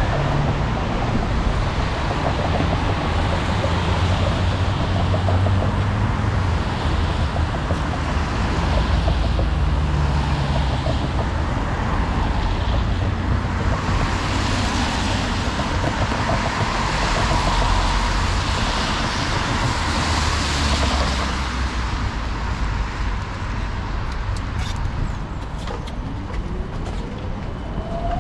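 Traffic on wet streets: cars passing with tyres hissing on the wet road over a steady low rumble, with one passing vehicle swelling loudest for several seconds in the middle. A rising whine comes in near the end.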